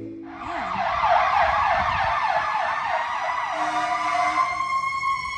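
Emergency vehicle siren sounding a fast yelp, about four sweeps a second, then switching to a long, slowly falling wail.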